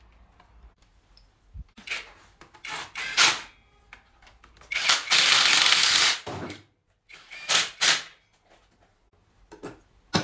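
Cordless power driver spinning bolts into an automatic transmission housing in several short runs. The longest and loudest run lasts about a second and a half in the middle.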